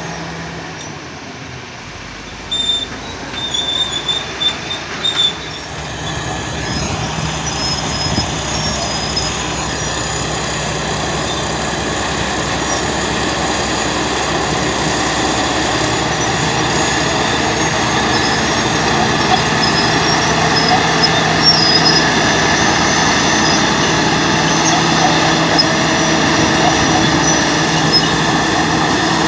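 Caterpillar D9G crawler dozer working, its turbocharged six-cylinder diesel running steadily under load, with a few brief high squeals about three seconds in. The sound grows louder after about six seconds.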